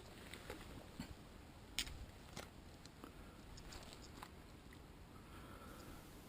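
Faint, irregular clicks and rustles of close handling noise over a quiet background, the sharpest about two seconds in.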